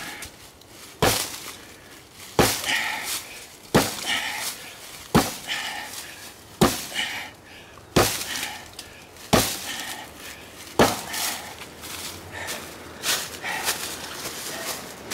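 An axe chopping into a dead tree trunk: eight sharp blows at an even pace, about one every second and a half, stopping about eleven seconds in.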